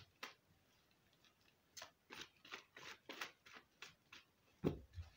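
Tarot cards being shuffled by hand, a quick run of short crisp card slaps about three a second, then one dull thump near the end as the deck is set down or tapped on the cloth-covered table.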